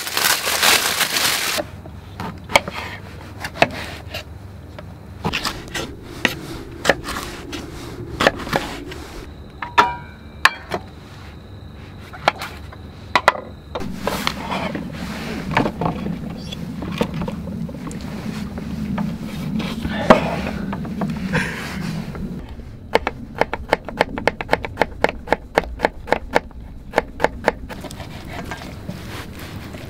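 Food sizzling in the first couple of seconds, then scattered knocks and scrapes of utensils and packs set down on a wooden table. Near the end comes a quick run of knife strokes: an Opinel folding knife cutting raw chicken thigh into bite-size pieces against a wooden cutting board.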